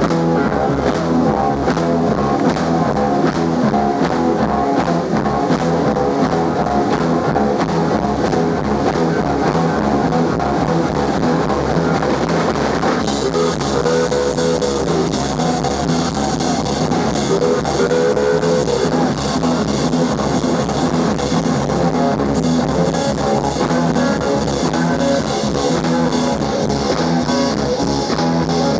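Blues-rock band playing live, instrumental with no singing: electric slide guitar with gliding notes over a steady drum kit and bass guitar.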